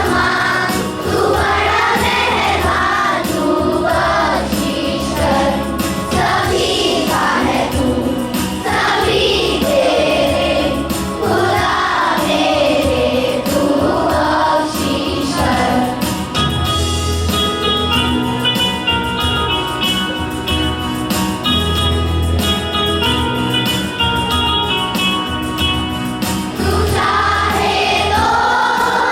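A group of voices singing a song with instrumental accompaniment. About halfway through, the voices mostly drop out for around ten seconds while the instruments carry on, then the singing returns near the end.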